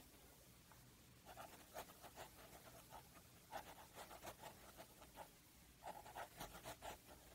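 Faint scratching of a pen tip drawing short lines on paper, in three runs of quick strokes with small pauses between them.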